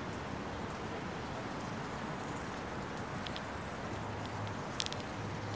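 Steady outdoor background noise on a moored boat, with a faint low hum coming in about four seconds in and a couple of light clicks.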